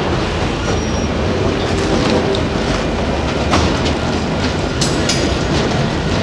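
Freight train of enclosed autorack cars rolling past close by: a steady rumble of steel wheels on rail, broken by irregular clicks and clanks, with a cluster of sharp clanks about five seconds in.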